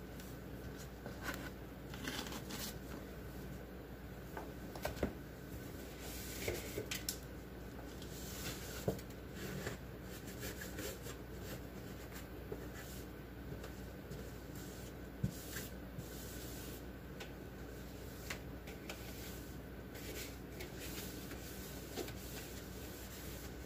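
Quiet handling noises from cleaning out the inside of a refrigerator: scattered light knocks, clicks and rustling, over a faint steady hum.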